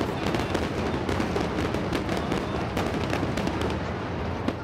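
Fireworks display: aerial shells bursting one on another with dense crackling, a continuous run of sharp cracks and bangs with no break.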